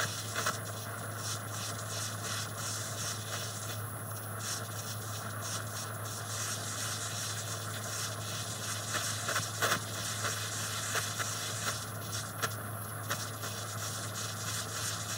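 Butane micro torch flame hissing steadily while heating a fine silver wire ring to fuse its join, with scattered light crackles and ticks that come thicker past the middle, over a steady low hum.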